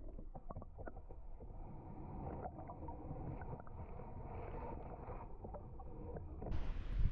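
A kayak being paddled: a steady wash of water against the paddle and hull with small knocks and clicks, and a louder low bump near the end.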